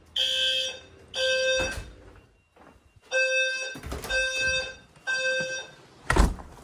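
Fire alarm horns sounding the temporal-three evacuation pattern: groups of three half-second buzzy blasts with a pause of about a second and a half between groups, sounding during a system test. A thump near the end.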